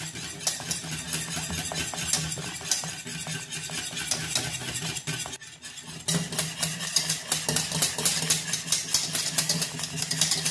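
A whisk clicking and scraping rapidly against the sides of a non-stick saucepan as crème pâtissière is stirred without stopping over low heat, with a brief lull a little past halfway. A steady low hum runs underneath.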